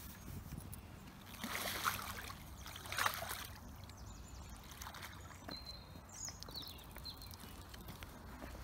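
Water splashing and sloshing as a landing net holding a catfish is lifted from the shallows at the water's edge, in two splashy bursts, about one and a half and three seconds in.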